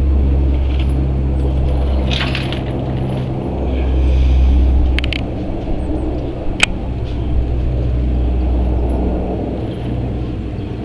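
Antonov An-12's four Ivchenko AI-20 turboprop engines droning steadily as the aircraft passes low overhead, swelling briefly about four seconds in. A few sharp clicks come through near the middle.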